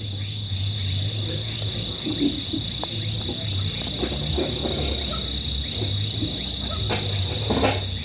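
Crickets chirping in a steady, continuous high trill at night, over a low hum.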